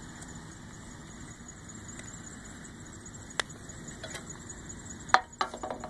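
A few sharp clicks and knocks over steady low background noise: a single one about three and a half seconds in, then a quick cluster near the end.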